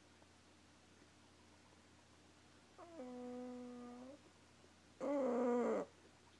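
Dog snoring in its sleep, with snores that sound like a fart: one steady, pitched snore held for over a second near the middle, then a louder, shorter one that drops in pitch as it ends.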